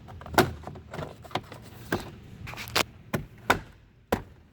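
Plastic door trim panel being pressed onto a Volvo VNL truck door, its retaining clips snapping into place. About nine sharp knocks and snaps come at uneven intervals as the panel is pushed in along its edge.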